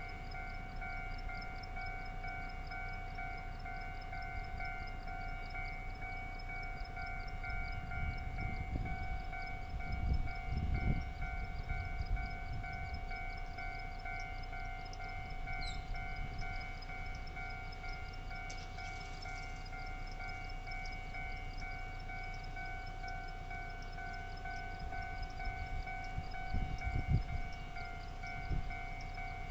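Railway level crossing warning bell ringing continuously: a rapid electronic ding of several fixed tones, about four strikes a second. Low rumbles rise under it about eight to twelve seconds in and again near the end.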